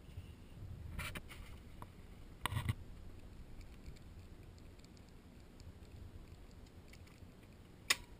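A few faint knocks and rustles of handling, then near the end one sharp click of a circuit breaker being flipped, the breaker that feeds the well pump.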